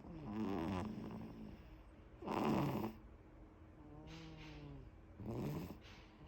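Snoring in sleep: four snores about every one and a half seconds. The loudest comes about two and a half seconds in, and a softer, more tuneful one comes about four seconds in.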